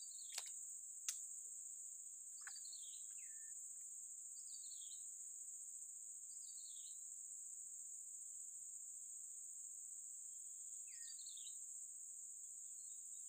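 A steady high-pitched insect chorus, crickets or cicadas, with a bird repeating a short descending call every couple of seconds. Two sharp clicks come about half a second and a second in.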